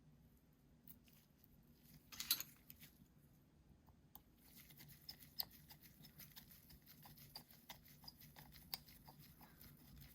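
Faint small clicks and ticks of a precision screwdriver driving the tiny bottom screws of an iPhone XR, with a brief scraping rustle about two seconds in.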